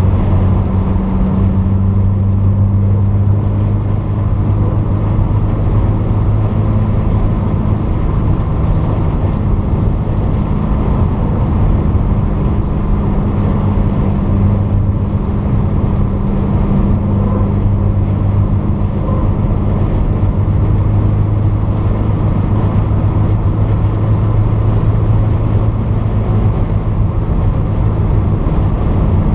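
Porsche 944's 2.5-litre four-cylinder engine running at steady revs under way: a constant low drone over road and wind noise.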